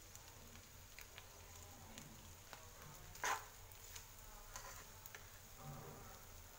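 Boiled egg pieces and chana dal frying faintly in oil in a non-stick pan, with a spatula stirring and scraping through them in small clicks. There is one louder spatula stroke a little over three seconds in.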